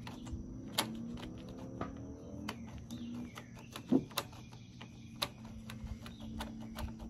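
Scattered sharp clicks and light taps as hands handle the plastic and metal parts of an Echo SRM-210 string trimmer at its throttle handle, with one louder knock about four seconds in. A bird calls faintly in the background.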